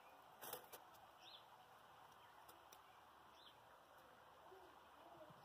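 Near silence with faint, short bird chirps every two seconds or so, and a brief crackle about half a second in.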